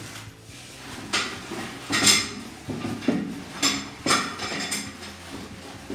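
Plastic-wrapped steel parts of a barbell rack being handled in and out of a cardboard box: plastic foil crinkling and metal parts clinking, in a string of short bursts.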